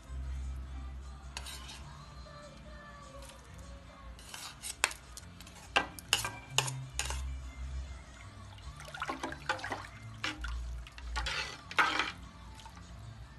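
A metal spoon stirring a thick sauce in a pot, scraping and clinking against the pot's side, in two clusters of sharp clinks about four seconds in and again about nine seconds in.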